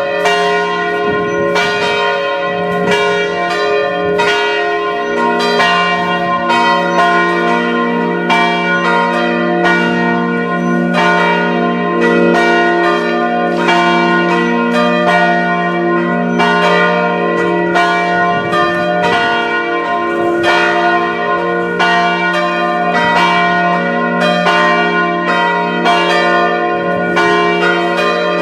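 Several church bells of different pitches ringing together in a continuous peal, the strikes coming about two to three a second and overlapping, over a steady low ringing hum.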